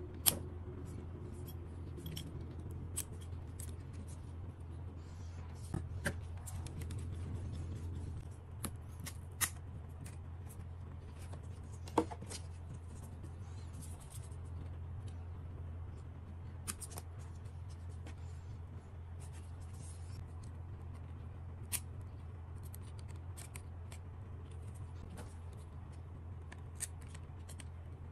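Scattered small clicks and ticks of a precision screwdriver and pliers working on the plastic and metal parts of an opened DJI Mini 3 Pro drone, over a steady low hum. The sharpest clicks come just after the start and about twelve seconds in.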